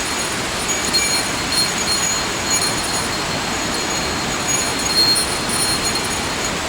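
Water rushing steadily down a mountain-gorge waterfall, an even noise with no breaks. Short, thin, high tones come and go over it.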